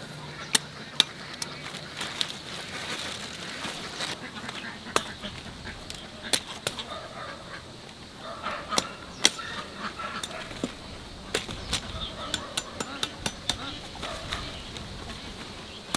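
Irregular sharp knocks and clicks, a few of them loud, with poultry calling a few times between about 8 and 11 seconds in.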